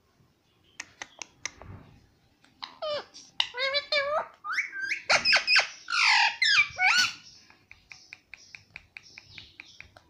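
Ringneck parakeet chattering in a run of squeaky, gliding, speech-like syllables. Before and after, its beak taps on a plastic makeup compact, ending in a quick even run of about five taps a second.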